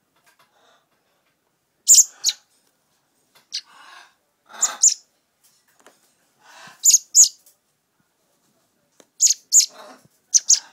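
Baby common blackbird, about two weeks old, begging for food: short, sharp, high-pitched chirps, mostly in pairs, repeated about five times, with quieter scratchy sounds between them.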